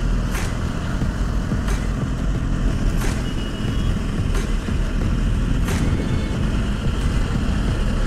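Motorcycle on the move: a KTM Duke's single-cylinder engine running steadily under wind rush, with a faint click about every second and a half.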